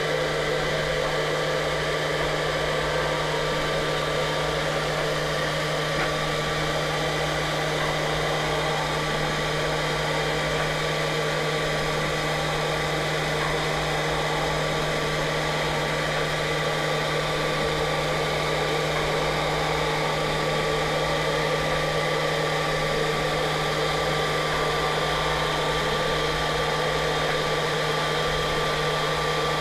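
CNC router running a 3D engraving job: the spindle motor runs at a constant speed with a strong low hum and a few thin steady whining tones.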